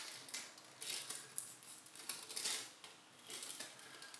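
Tissue paper rustling in short, soft bursts as it is dabbed and rubbed against tacky gold size on a metal ball: a test of whether the size is ready for the gold leaf.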